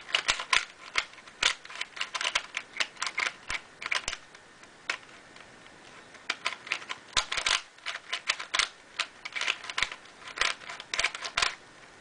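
Plastic 3x3 puzzle cube being turned quickly by hand: runs of rapid clicking and clacking as the layers snap round, with a pause of about two seconds near the middle.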